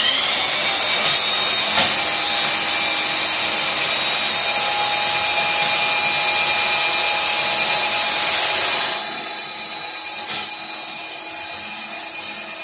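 Electric drill spinning a drain snake cable down a clogged bathroom sink drain pipe: the motor starts abruptly and runs at a steady high whine, then drops noticeably quieter about nine seconds in and keeps running.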